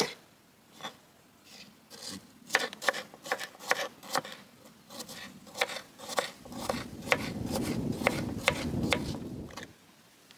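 Kitchen knife dicing cucumber on a wooden cutting board: a run of sharp, irregular taps of the blade on the board, a few a second, stopping shortly before the end. A low rumble runs under the second half of the chopping.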